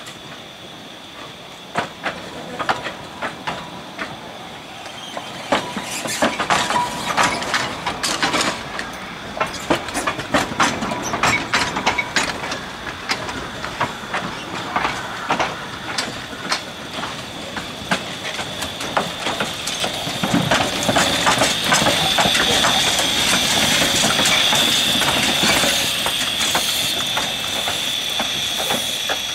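Narrow-gauge forest railway train on the move: a long run of irregular clanks and clicks from wheels and wagons on the track, over a steady high hiss that grows louder in the second half.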